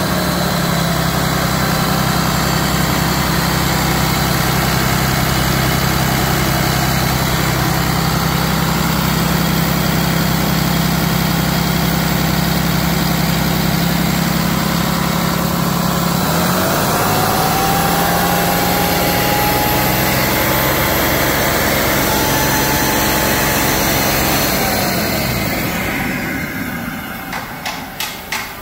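2015 Cummins ISB 6.7 turbo-diesel inline-six running at idle, then its speed rises about halfway through and holds steady for several seconds before dropping back. Near the end the engine sound falls away and a few sharp clicks are heard.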